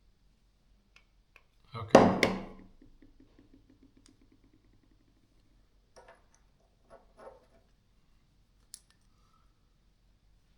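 A few faint, scattered clicks and light taps of small drill parts being handled and fitted by hand while a DeWalt D25003K hammer drill's gearbox is reassembled.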